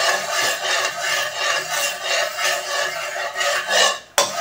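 Metal spatula scraping around the inside of an aluminium wok with a little hot oil, a loud rasping scrape in quick repeated strokes, breaking off for a moment near the end.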